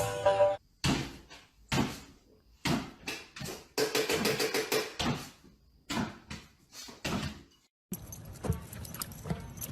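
A series of separate sharp knocks or bangs, about one a second, each dying away quickly, with a busier rattling stretch about four seconds in.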